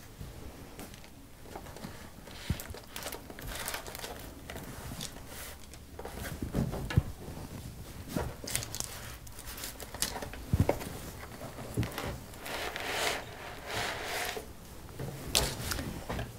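Soft handling noises as a cake half is slid onto a doily-covered baking tray: paper rustling, and a few light knocks and scrapes of a knife against the cake and tray.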